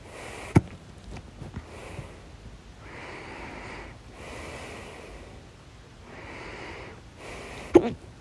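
A person hiccuping loudly twice, once about half a second in and once near the end, with breathing in and out between the hiccups.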